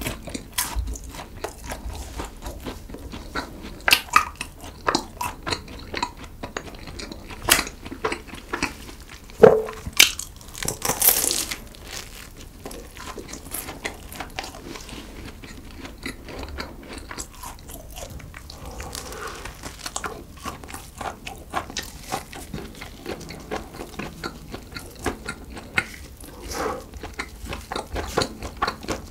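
Close-miked eating of a chocolate-coated croissant: the flaky pastry crackles and crunches with each bite, loudest over the first half, then quieter chewing.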